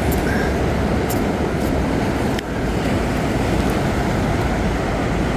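Steady rushing outdoor noise of wind and sea at the shore, heaviest in the low rumble, with a brief dip and click about two and a half seconds in.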